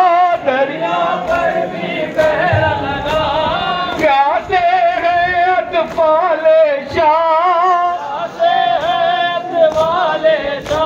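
Men singing a nauha, a Muharram lament, in long wavering held notes with a group of voices joining in. Sharp slaps fall in time about once a second: the beat of matam chest-beating.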